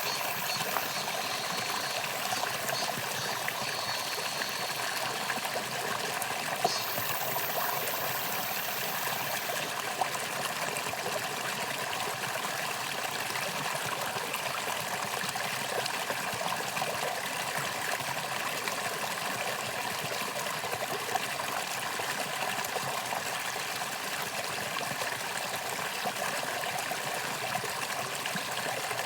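Mountain valley stream flowing: a steady, unbroken rush and trickle of water.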